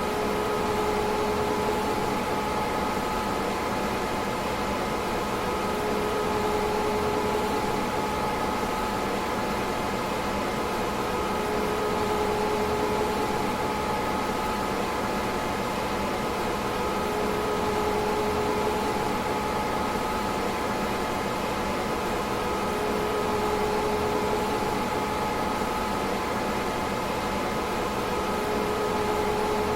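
DEC PDP-11/44 minicomputer running: a steady whir of cooling fans with a constant hum, and a lower tone that swells and fades about every six seconds.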